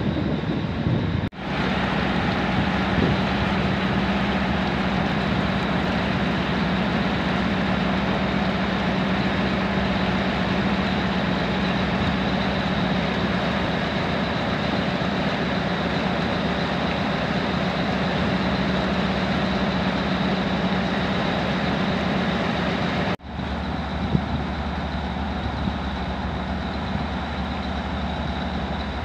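Tug boat diesel engines running steadily under load, a continuous drone with a low hum. The sound drops out sharply and briefly twice.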